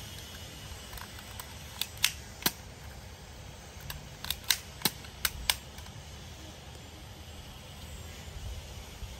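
Sharp plastic clicks from a gold toy pistol being worked by hand: three around two seconds in, then five more between about four and five and a half seconds in.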